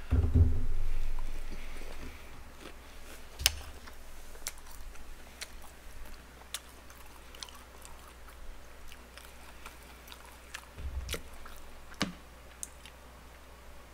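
Close-miked chewing of boneless fried chicken, with scattered small mouth clicks and crunches. A dull low bump comes at the start.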